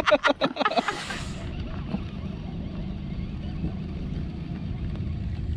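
A small vehicle engine running steadily while under way, with wind rumbling on the microphone.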